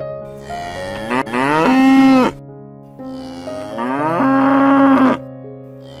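Cow mooing twice: two long calls, each rising in pitch, then held, then stopping sharply.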